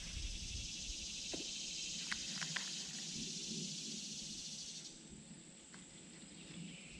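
A chorus of insects buzzing steadily at a high pitch, which falls away about five seconds in. A few light clicks come through about two seconds in.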